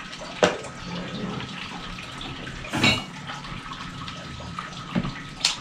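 Handling clicks from a Marauder-type PCP air rifle's breech: a sharp click about half a second in, a louder knock near three seconds, and two more clicks near the end, over a steady hiss.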